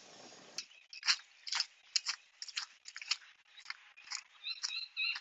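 Water trickling through a float valve into a PVC pipe reservoir as the system starts to fill: a string of short, irregular drips and splashes, a few a second.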